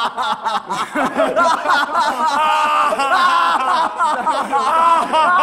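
Several young men laughing loudly together, with excited voices mixed in.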